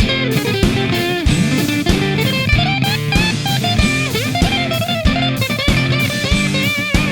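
Instrumental break of a blues-rock song: an electric guitar plays a lead line with bent notes over rhythm guitar, bass and a steady drum beat.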